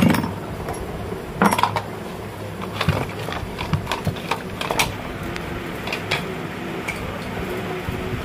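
A hammer blow on a punch against a ceiling fan's metal motor body, then scattered metallic clinks and knocks as the casing is pulled apart and the wound stator is lifted out.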